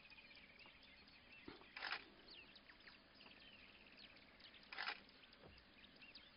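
Birds chirping and trilling in the background, with two short harsh noises, about two seconds and about five seconds in.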